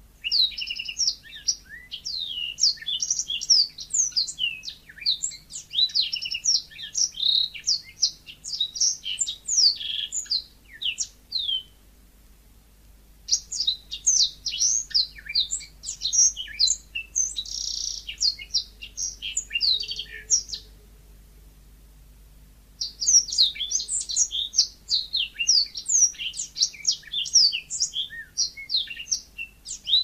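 Yellow-fronted canary (Mozambique canary) singing a rapid twittering song of short, quick, high chirps and trills. It comes in three long bouts separated by pauses of a second or two.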